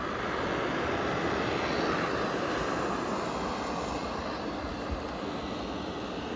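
Vacuum cleaner running with a steady whooshing hum.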